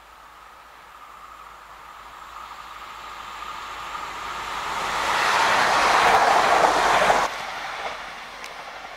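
TER passenger train approaching and passing at speed on electrified track: a rush of wheel and rail noise with a faint steady whine, building for several seconds to its loudest about six seconds in. It stops abruptly after about seven seconds, leaving the quieter running of another train approaching.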